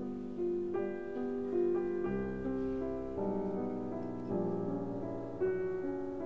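Background instrumental music: a slow piano melody over held chords, with a new chord about every second.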